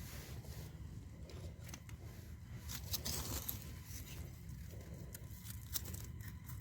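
Dry rustling and crackling, with scattered sharp snaps; the loudest come about three seconds and near six seconds in. A steady low rumble runs underneath.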